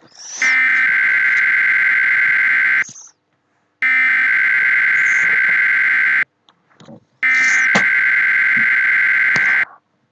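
Emergency Alert System SAME header for a thunderstorm warning from EAS encoder software: three identical bursts of high-pitched digital data tones, each about two and a half seconds long, separated by pauses of about a second.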